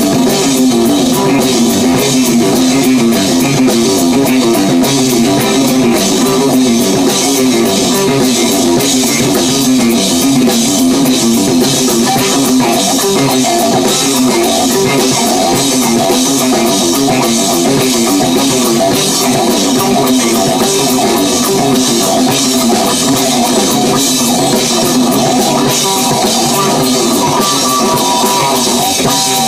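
Live rock band playing loudly: guitar over a drum kit.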